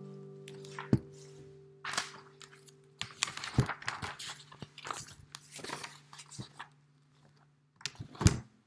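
Nylon-string classical guitar's last chord ringing and fading, then the paper pages of a spiral-bound music book being handled and turned, rustling and crackling, with a knock about a second in and a sharper slap of the page near the end.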